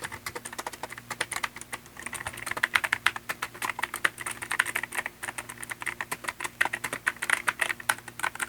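Mechanical keyboard with clicky blue switches being typed on quickly: a dense run of sharp key clicks, very noisy. The keystrokes are sparser for the first couple of seconds, then come fast and without a break.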